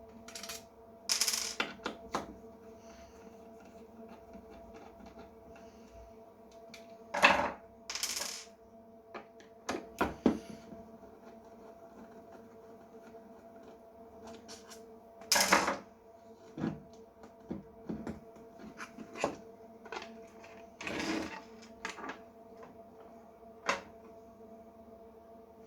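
Scattered clicks, taps and short clatters of small metal parts and tools being handled while a frequency counter is opened up on a workbench, over a steady hum.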